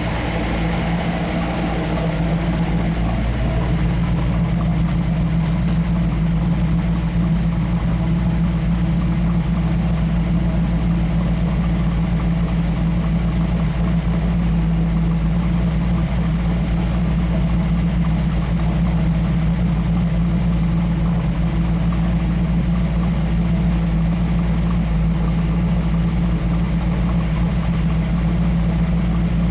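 1968 Pontiac Firebird's 462 cubic-inch stroker V8 (a 428 with a 455 HO top end) running at a steady, even speed. It settles slightly lower in pitch a couple of seconds in.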